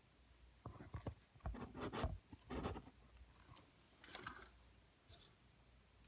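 A few soft, irregular scrapes, rustles and knocks, as of things being handled, mostly in the first half, then fainter.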